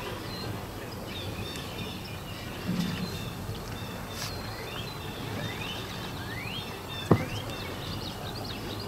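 Outdoor ambience with a steady rush and a short, high, rising chirp from wildlife repeating about once a second. A single sharp click comes about seven seconds in.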